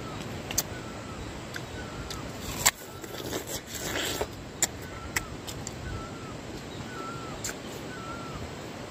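Crunching bites and chewing of a crisp ripe pear, with a few sharp clicks. Behind it a bird repeats a short chirp about once a second.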